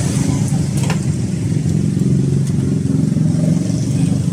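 An engine running steadily close by, a low even drone, with a few sharp snips of kitchen scissors cutting through a fish, the loudest about a second in.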